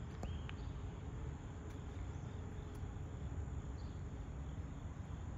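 Summer outdoor ambience: insects chirring over a steady low rumble, with a brief high chirp near the start.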